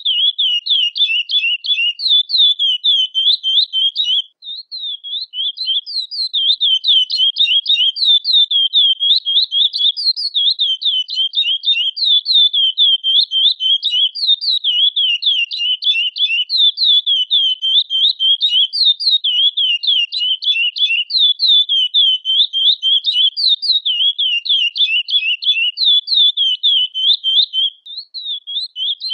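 Curió (chestnut-bellied seed finch) calling: a rapid, unbroken run of high, sharp, down-slurred notes, several a second, pausing briefly about four seconds in and again near the end.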